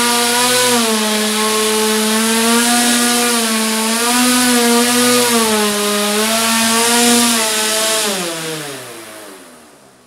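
Single-copter drone's propeller motor running with a steady buzzing whine that wavers slightly in pitch. About eight seconds in it winds down, the pitch falling as the rotor spins down and fades away.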